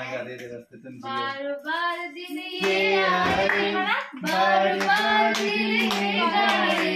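A family group of adults and children singing a birthday song together, with hand clapping that joins in from about four seconds in. A steady low tone runs under the singing from about three seconds in.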